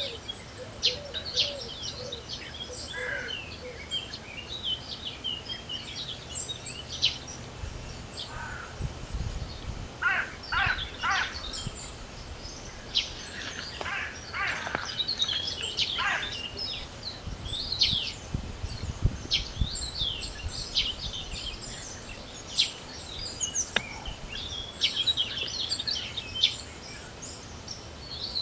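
Spring birdsong: several birds chirping and calling, with gusts of wind rumbling on the microphone now and then.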